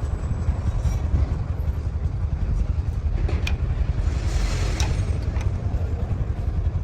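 A steady low engine rumble, with a few faint clicks and knocks about halfway through.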